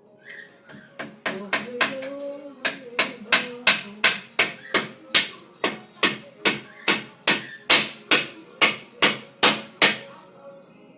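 Steady hammering, about two blows a second for roughly nine seconds, the blows growing louder after the first few.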